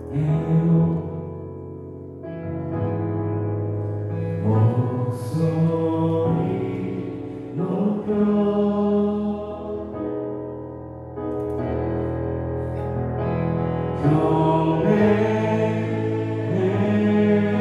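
A live worship band plays a slow passage of held chords, changing about every two seconds. Keyboards carry the chords over electric bass, with electric guitar and drum kit.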